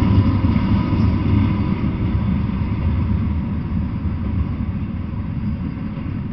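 Double-stack intermodal freight train rolling past, a steady low rumble of wheels on rail that eases off slowly.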